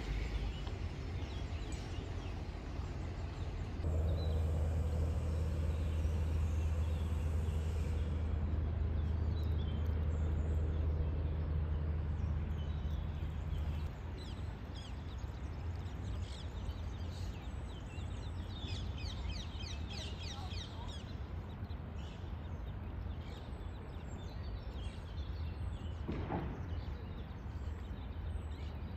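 Outdoor ambience: a steady low rumble, heavier through the first half, under small birds chirping and trilling, busiest about two-thirds of the way through. A single sharp knock near the end.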